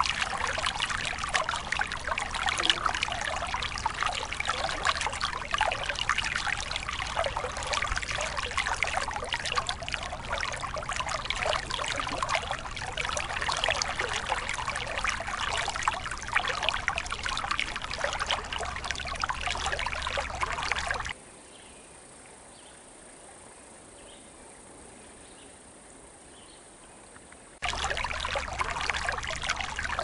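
Shallow creek running over stones: a steady trickling and splashing. About two-thirds of the way through it drops away for some six seconds to a faint hush, then resumes just as before.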